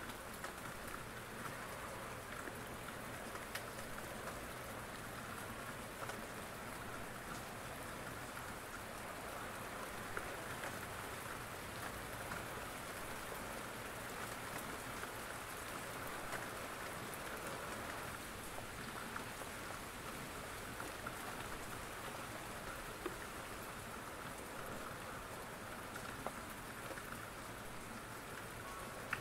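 Steady rain falling, an even hiss with a few sharper ticks scattered through it.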